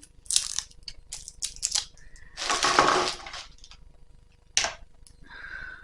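Plastic packaging crinkling and crackling as a product's wrapping is worked open by hand, in several short bursts with one longer, louder crackle about halfway through and a sharp snap near the end.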